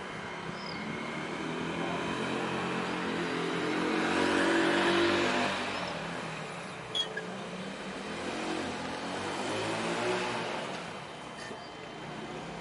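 Road traffic below: a motor vehicle's engine passes, swelling to its loudest about halfway through and fading, then a second, weaker pass later on.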